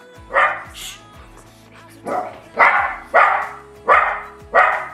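Pet dog barking repeatedly: two barks near the start, then, after a pause of about a second, a run of five barks.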